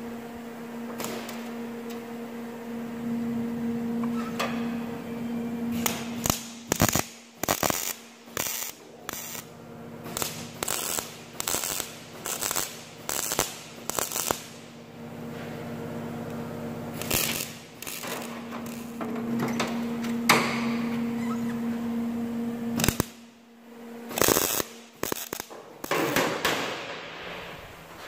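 MIG welder stitch-welding a steel hinge strip to a rusty steel truck bonnet panel: a series of short welds, each under a second, with brief pauses between them, over a steady low hum.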